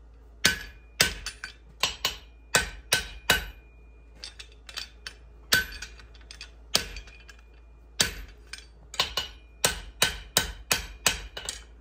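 Hand hammer blows on a blacksmith's guillotine tool and anvil, forging a hot steel bar: a series of sharp metal strikes at an irregular pace with a brief ring after many of them. There are a few lighter taps about four seconds in, and a quicker run of blows near the end.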